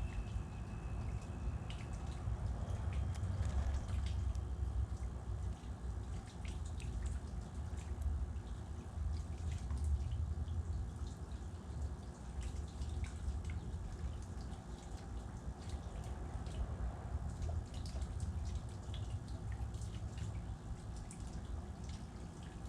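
Outdoor ambience: a steady low rumble with many small scattered ticks and clicks, and a thin whistled note during the first second or so.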